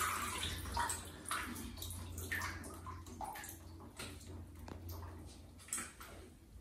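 Water dripping and splashing into a plastic basin from a wet baby monkey lifted out of its bath, the drips thinning out and getting fainter.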